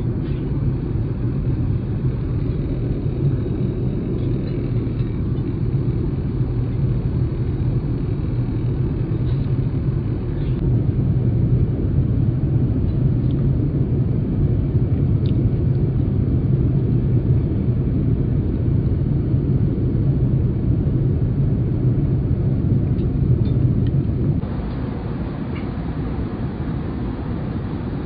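Steady low rumble of an Airbus A380 cabin in flight: engine and airflow noise, with a few faint clicks. Near the end it drops a little quieter with more hiss.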